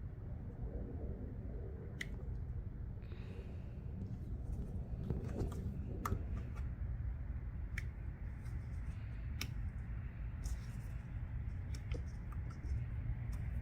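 Sharp, isolated clicks every second or two over a low steady hum: a hot staple plastic-repair tool setting small stainless steel staples into a cracked plastic bumper.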